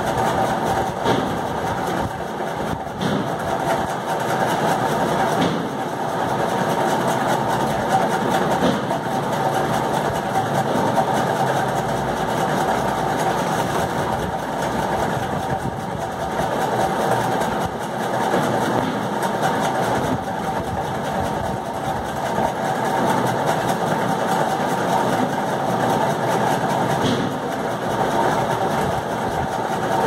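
A steady mechanical drone, like a motor running, holding an even level throughout.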